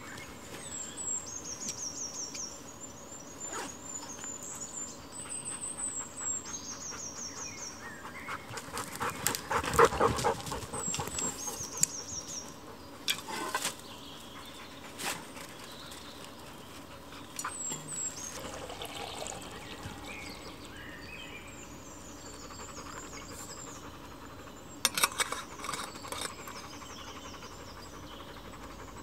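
Rustling and knocking of a rucksack being unpacked and camping cooking kit being set down, with the loudest clatter about ten seconds in and sharp knocks near thirteen and twenty-five seconds. Woodland birds sing repeated high trilling phrases throughout.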